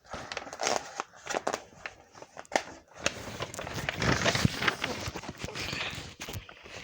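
Handling noise: irregular clicks, knocks and scraping as objects are moved about and fitted by hand, busiest from about three to five seconds in.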